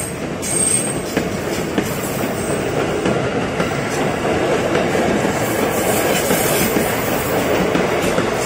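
Ex-Tokyo Metro 6000 series electric commuter train moving past along the platform: a steady rumble of wheels on rail with a few clicks. A brief high wheel squeal comes about half a second in.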